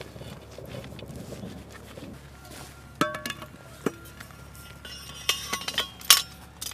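Metal clinks and clanks as the parts of an 81mm mortar are fitted together: the bipod and its clamp going onto the barrel. One sharp ringing clink comes about three seconds in and a second just before four seconds, then a quick cluster of clinks near the end, the loudest close to the end.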